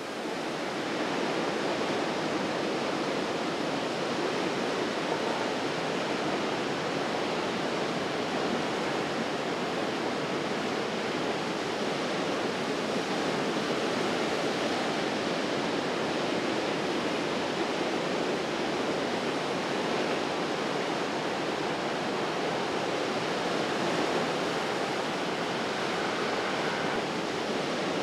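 Ocean surf washing in over rocks, a steady rushing hiss.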